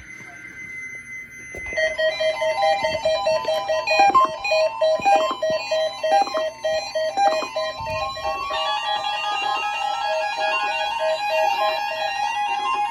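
Music: a fast, repeating pattern of plucked, guitar-like notes, with a steady tone that rises slowly in pitch from about eight seconds in.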